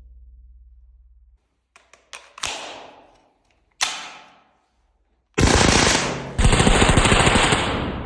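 Zoraki 925 blank-firing machine pistol shooting: two single shots about a second apart, then a long full-automatic burst of rapid shots from about five seconds in.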